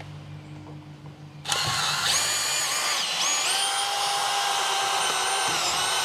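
Cordless drill fitted with a nut driver driving a screw through the RV's aluminum C-channel into the steel frame. After a few faint clicks it starts about a second and a half in and runs steadily, its whine stepping up and down in pitch a few times as the screw bites.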